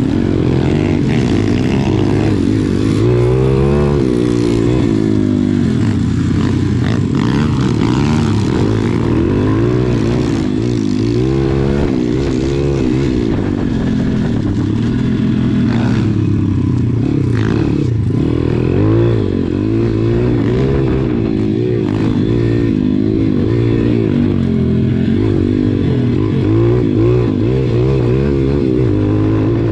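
SSR pit bike's small four-stroke single-cylinder engine ridden hard on a dirt track, revving up and down with the throttle and gear changes so the pitch keeps rising and falling.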